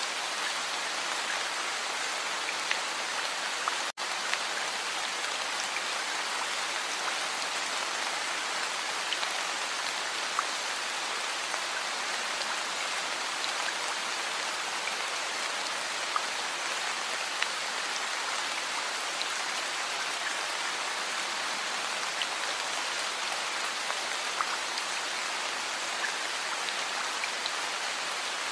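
Heavy rain falling steadily, an even hiss with scattered sharper drop ticks. The sound cuts out for an instant about four seconds in.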